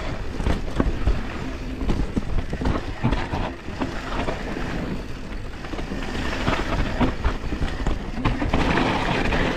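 YT Capra Core 3 MX mountain bike ridden down a rough trail: tyres rolling over dirt and rock with frequent knocks and rattles, and a rushing noise that grows louder about six seconds in.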